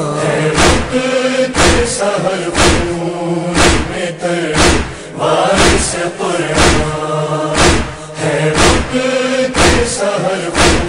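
A chorus of men chants the held refrain of an Urdu noha lament in unison. A deep thump marks the beat about once a second, in the manner of matam chest-beating.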